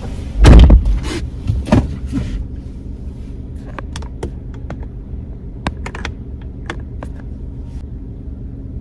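Inside a car cabin: a heavy thump about half a second in as a car door shuts, then the steady low hum of the car idling, with scattered small clicks from people settling in their seats.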